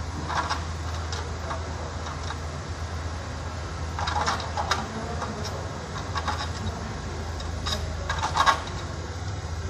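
Short bursts of metal clicking from a hand tool working on the car's automatic transmission from below, with the loudest burst near the end, over a steady low hum.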